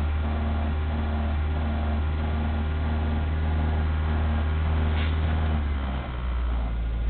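Citroën BX 16 TRS four-cylinder engine, converted to LPG, idling shortly after a cold start, heard from inside the cabin as a steady low hum. About six seconds in, the idle note drops lower.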